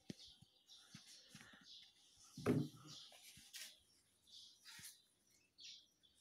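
Small birds chirping on and off in short high calls, with a few light clicks and a louder dull thump about two and a half seconds in.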